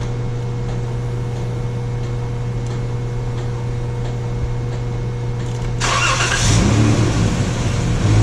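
A 2012 Chrysler minivan's V6 engine idling steadily just after a start, with the fuel pump slow to come on because of a failing fuel pump relay inside the TIPM. About six seconds in, a louder hissing rush joins the idle.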